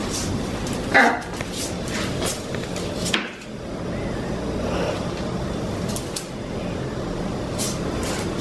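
A blue-and-gold macaw's claws tapping on a hard floor as it walks, over a steady low rumble, with one short, loud falling call about a second in.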